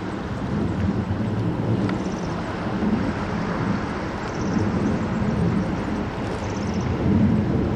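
Distant jet engine noise from F-15C Eagle fighters and a KC-46A tanker flying high overhead, heard from the ground as a steady low drone that swells and eases.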